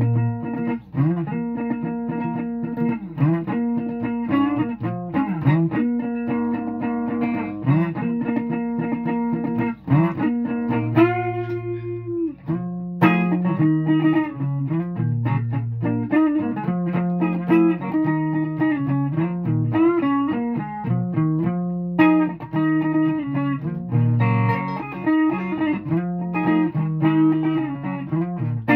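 Guitar music: plucked notes over a low bass line, with a held note that bends in pitch about eleven seconds in.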